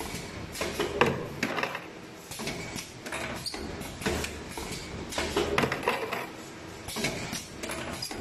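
Automatic wire ring butt welding machine running its cycle: wire feeding through rollers, with pneumatic clamps and cylinders clacking and knocking in a cycle that repeats about every three seconds.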